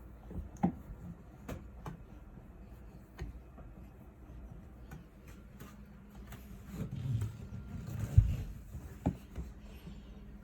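Handling noises at a drum washing machine: scattered clicks and knocks over a low steady hum, with a heavier thump about eight seconds in.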